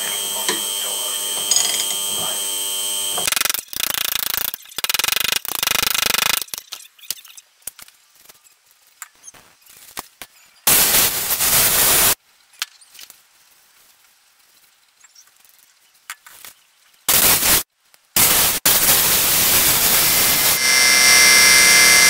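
A ratchet wrench clicking on a hub over the steady hum of an ultrasonic cleaning bath. After that, loud hissing blasts of compressed air from an air blow gun blow the cleaned bearings dry: one of about a second and a half, two short ones, then a long blast that carries a steady whine near the end.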